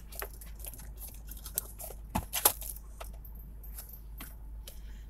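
Scattered small clicks, taps and rustles of a phone and its charging cord being handled and swapped, with a couple of sharper clicks about two and a half seconds in.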